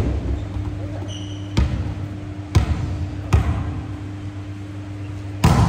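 Volleyball bouncing and thudding on a wooden gymnasium floor: four separate echoing thuds, a second or so apart, the loudest just before the end, over a steady low hum of the hall.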